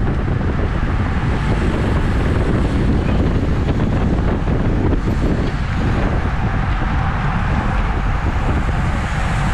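Steady wind noise buffeting the microphone of a bicycle-mounted camera riding in a road race pack at about 23 mph.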